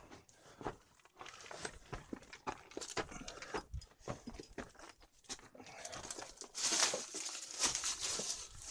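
Footsteps crunching over loose stone rubble and dry dead leaves in a cramped underground passage, as a run of irregular crackles. The crackling turns into louder, denser rustling about two-thirds of the way in.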